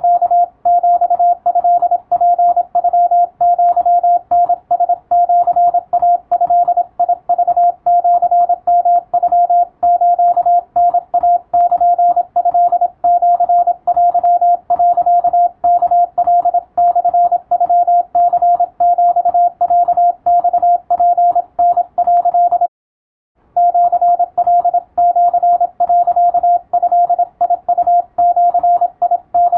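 Morse code sent as a single steady tone keyed on and off in short and long elements, dots and dashes, at a fast, even pace, with one brief break about 23 seconds in.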